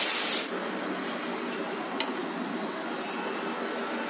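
Steady running noise of workshop machinery, with a short loud hiss in the first half second.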